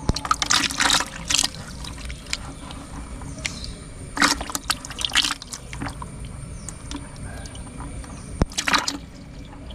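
Water splashing in short bursts as fish are handled in water, about three times: a second in, around four to five seconds in, and near the end.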